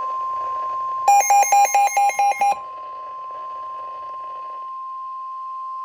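NOAA Weather Radio's 1050 Hz warning alarm tone: one steady high tone, the signal that a warning broadcast follows. About a second in, seven quick, harsher beeps sound over it in a row.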